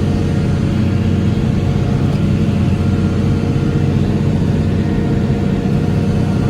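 A lobster boat's engine running steadily underway, a constant loud drone with a deep, even hum.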